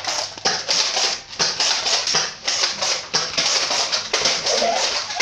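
Quick, irregular knocks and rustles, about three or four a second: footsteps and handling noise as a phone is carried at a run over a tiled floor. A child's voice sounds briefly near the end.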